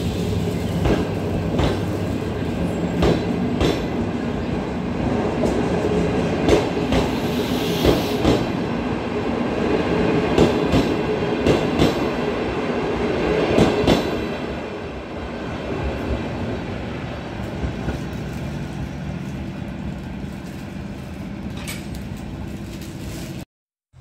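Passenger train coaches rolling past: a steady rumble with wheels clacking over the rail joints, loudest for the first half, then fading as the train moves off. The sound cuts off suddenly just before the end.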